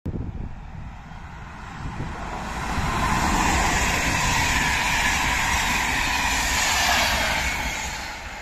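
Passenger train coaches rolling past on the rails: a steady rush of wheel and rail noise with a faint ringing hum. It swells about two seconds in and fades near the end as the last coach goes by.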